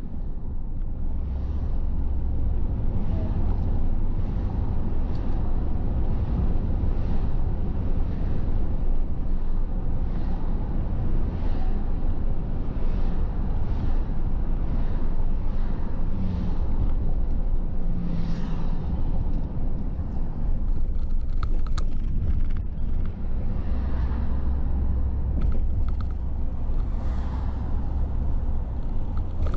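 Car driving along a city street: a steady low rumble of engine and road noise, with repeated brief swishes of tyres and passing traffic.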